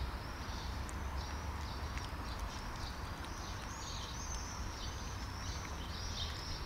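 A cat eating cubed cat food from a plastic tray, with faint chewing clicks. Behind it a bird sings a string of high, arching notes, roughly two a second, over a steady low rumble.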